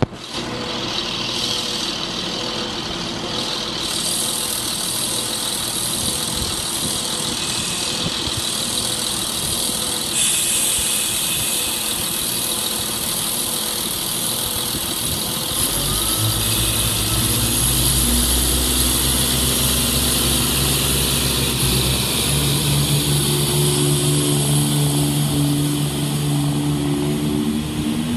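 Diesel multiple unit standing at the platform with its engines idling. About halfway through, the engines open up as the train pulls away, and their note climbs in steps.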